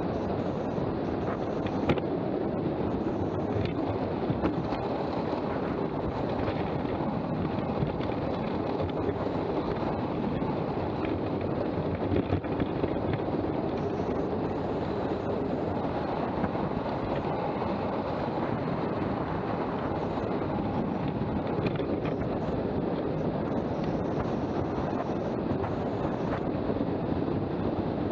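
Steady rush of wind over the microphone mixed with the roar of a downhill board's wheels rolling fast on asphalt, with a few small knocks from bumps in the road.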